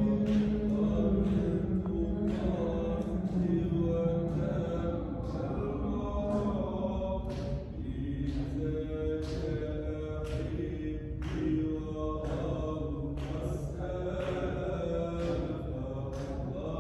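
Group chanting of a Sufi dhikr (hadra), many voices holding long notes in unison, with sharp accents about once a second that keep a steady rhythm.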